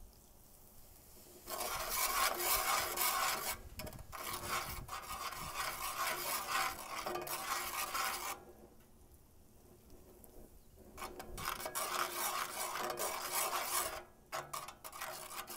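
Metal griddle spatula scraping and stirring in a cast iron skillet, working beer into a butter-and-flour roux. The scraping comes in spells of a few seconds with short quiet pauses between, starting about a second and a half in.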